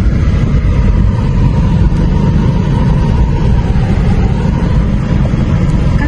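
Steady low rumble of a car on the move, engine and road noise, with no breaks or changes.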